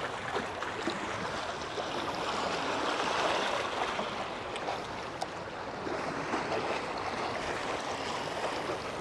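Small sea waves washing against the rocks of a breakwater, a steady wash that swells a little about three seconds in.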